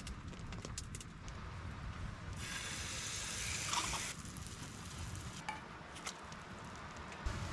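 Pancake cooking: a short burst of frying sizzle lasting under two seconds, with light clicks and knocks of utensils and cookware around it.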